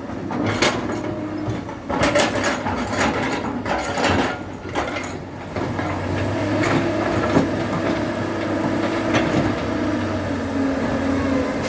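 JCB 3DX backhoe loader's diesel engine running, with a quick run of sharp knocks and clatter over the first five seconds or so, then a steadier engine note with a few single clicks.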